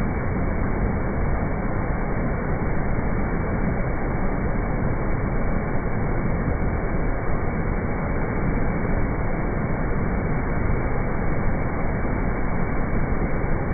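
Steady rush of heavy floodwater pouring through the open gates of a river barrage.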